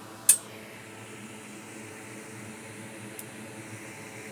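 A single sharp click a moment in, over a steady fan-like hum; a much fainter tick follows about three seconds later.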